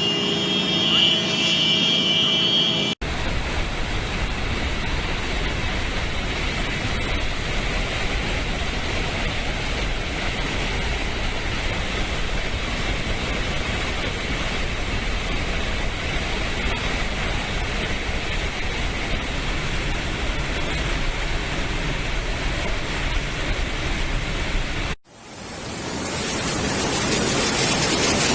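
Steady rushing roar of flash-flood water, an even noise with no tone in it, which cuts off abruptly and gives way to a hissier rush that grows louder near the end.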